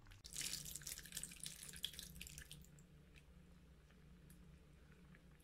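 Tamarind water poured in a thin stream into a pan of sambar, a faint splashing trickle for about two seconds, followed by a few faint ticks.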